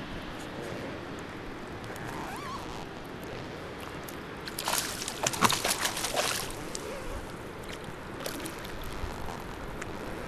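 Water sloshing and splashing right at the surface, with a burst of splashes about halfway through as a rainbow trout is released back into the lake.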